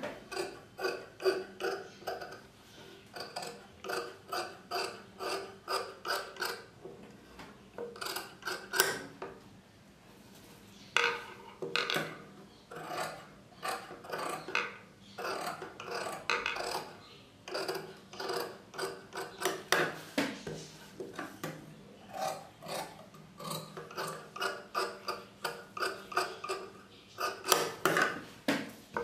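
Tailor's scissors cutting through blouse cloth and lining in a run of quick snips, about two to three a second with a short pause midway, trimming the excess fabric off a seam.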